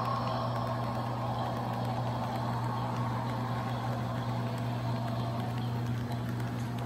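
HO scale model freight cars rolling past on the track: a steady rolling noise of small metal wheels on rail, with a constant low hum underneath.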